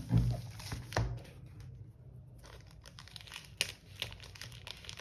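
Plastic courier mailer bag handled on a table: two soft thumps in the first second as it is moved, then the plastic crinkling and crackling, with one sharper crackle about three and a half seconds in.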